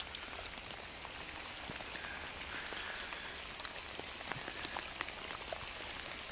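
Steady rain falling, with scattered single drops ticking close by, over the faint trickle of a small runoff stream spilling down a little drop.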